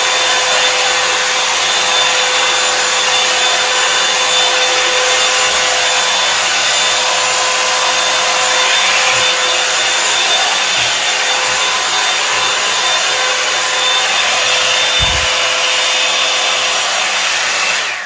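Revlon One-Step hot-air brush dryer running on its high setting: a steady rush of blown air with a constant motor whine. It cuts off at the very end.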